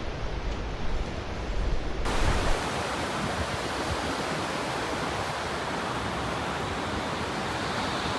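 Steady rushing noise of strong wind and surf. About two seconds in it changes suddenly, turning brighter and hissier with less deep rumble.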